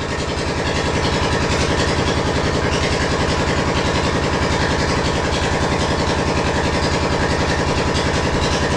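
An engine running steadily at idle, with a fast, even throb.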